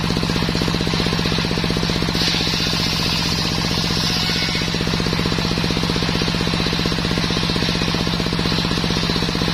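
Belt-driven circular saw bench run by an engine with a steady, fast thumping rhythm. The blade rips through a sengon board with a hiss from about two to five seconds in, then spins free.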